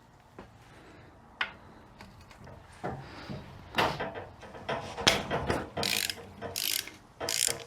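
Hand ratchet wrench loosening one of the 1/2-inch bolts on a 42RE transmission's front pump. There is a single click about a second and a half in, then from about three seconds on a run of short ratcheting strokes, one after another.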